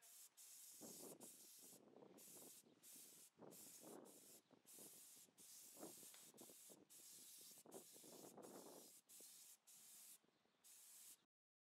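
Harbor Freight gravity-fed HVLP spray gun hissing faintly in about a dozen short trigger-pull bursts with brief gaps between them, laying a light dusting coat of paint. The hiss cuts off suddenly near the end.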